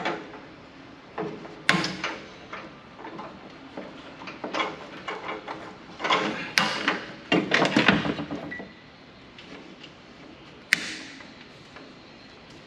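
Metal clinks and knocks from hand tools and sheet-metal chassis parts being handled while a telecom cabinet is unbolted: scattered sharp strikes, a denser clatter of rattling in the middle, and one sharp click near the end.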